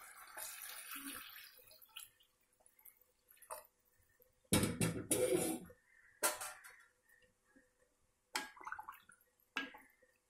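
Water poured into a pan of cooked tomatoes for rasam, a steady splashing pour that stops about two seconds in. Then a few short knocks and clinks of kitchen utensils, and a ladle stirring the liquid near the end.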